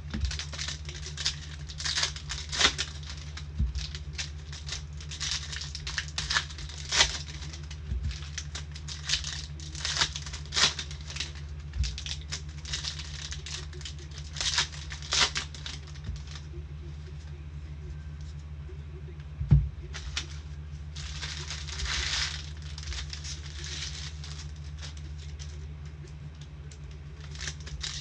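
Trading card packs being opened and the cards handled: repeated short crinkles and rustles, a longer rustle about 21 seconds in and one sharp tap around 19 seconds, over a steady low hum.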